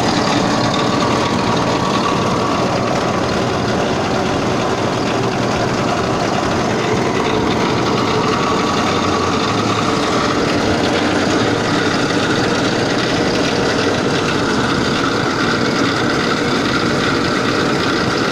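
Motor-driven chopper and mixer machine running steadily, a loud, even mechanical noise that holds level without stopping or changing pace.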